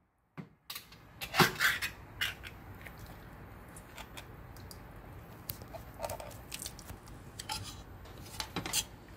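Clicks and clinks of opened tuna tins and their metal lids being handled over a pot as the tuna is pressed out; the sharpest clicks come about a second and a half in and again near the end.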